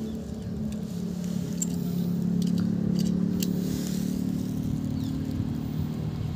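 A small electric motor in a toy car whirring steadily as the car drives slowly over a gritty concrete floor, with a few faint clicks from grit under the wheels.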